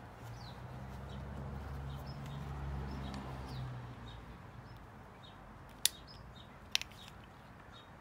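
Two sharp clicks about a second apart, near the end, from the e-bike's handlebar push-button headlight switch being handled. Small birds chirp faintly throughout, over a low steady hum that fades after about four seconds.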